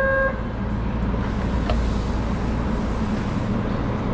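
Steady low rumble and hum of a subway train heard inside the driver's cab. A sustained electronic tone cuts off just after the start, and there is a light click about a second and a half in.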